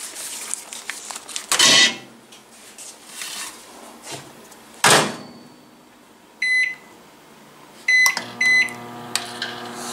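Microwave oven being loaded and started: a knock, then the door clunks shut about five seconds in. Three keypad beeps follow, and near the end the oven starts running with a steady low hum.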